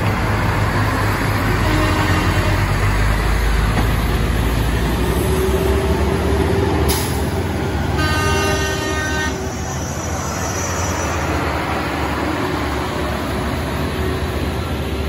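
Heavy trucks' diesel engines labouring up a steep hairpin climb, with a deep steady rumble. A horn sounds for about a second around eight seconds in, just after a short sharp burst.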